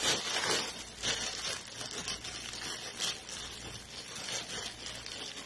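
Thin plastic wrapper crinkling and tearing as it is pulled open by hand, with irregular crackles.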